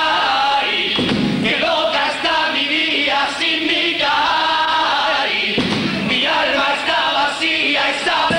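A Cádiz carnival comparsa, a group of men singing together in chorus to Spanish guitar accompaniment.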